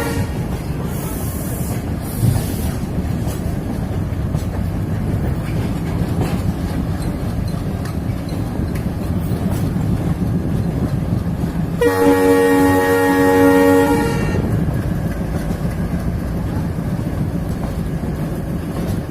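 Indian Railways train running along the track, a steady rumble of wheels on rails, with the train's horn sounding once for about two seconds past the middle.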